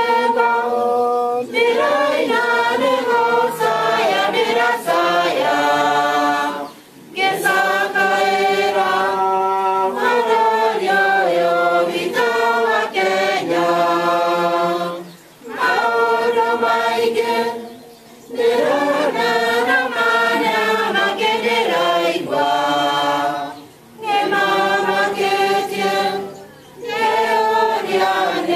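A group of voices singing a hymn together, unaccompanied, in long held phrases with brief breaks for breath between them.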